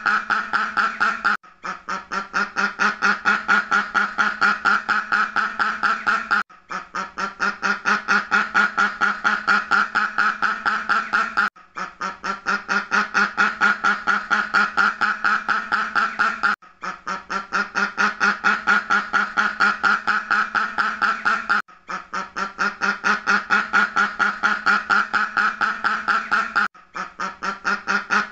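Duck quacking in a fast, even run of quacks, several a second, broken by a brief pause about every five seconds.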